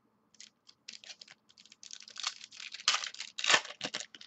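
Trading cards being handled and flipped through: a run of quick rustles and clicks of card stock, with the loudest rustles a little past the middle.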